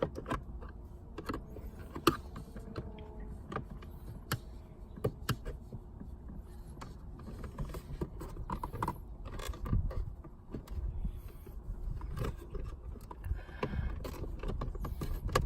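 Plastic gear shift trim panel of a 7th-generation Honda Civic being pried and worked loose by hand, with scattered clicks and knocks as its retaining clips give and the panel is handled.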